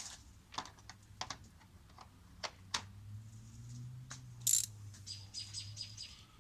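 Hand tools clicking and knocking against metal, with a louder clack about four and a half seconds in, then a ratchet wrench's pawl clicking rapidly, about six clicks in a second, near the end.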